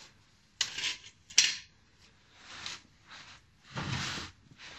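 Metal parts and tools being handled under a car: two sharp metallic clanks, the second the loudest, then softer scraping and shuffling.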